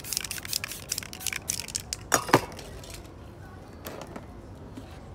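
Aerosol spray paint can sprayed in quick short bursts, several a second. About two seconds in come two loud knocks, and then the spraying stops.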